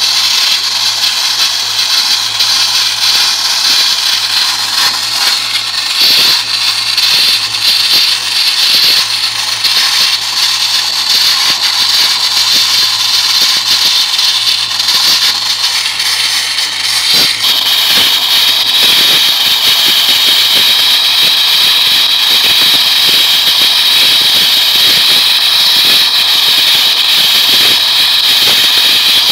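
Wet-blasting nozzle spraying a water-and-sand mix at about 90 psi onto a Jeep CJ6's steel body panel, stripping the paint: a loud, steady hiss, with the portable air compressor's engine running underneath. Just past halfway the low engine hum drops out and the hiss carries on with a gritty spatter.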